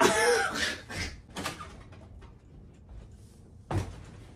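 A person's vigorous body movements on a floor: a loud yelled outburst with scuffling at the start, a few short knocks, then one sharp thump near the end.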